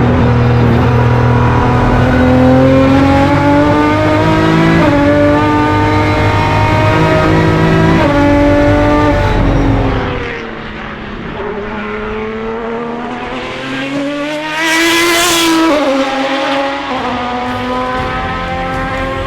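Ferrari 550 Maranello Prodrive race car's V12 engine accelerating hard, its pitch climbing and dropping with each upshift. After about ten seconds it turns quieter, then swells to its loudest about fifteen seconds in and falls away again.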